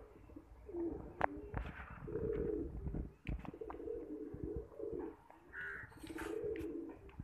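A flock of domestic pigeons, fantails among them, cooing in repeated low hoots, with a few sharp clicks mixed in.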